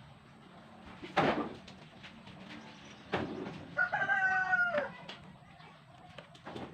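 A rooster crows once, a call of about a second with a falling end, a little before the four-second mark. Two sharp knocks sound earlier, the louder one about a second in and another just after three seconds.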